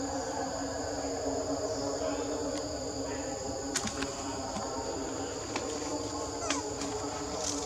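Insects droning steadily in the forest in two high, even pitches, over a lower steady hum, with a few brief clicks or snaps near the middle and the end.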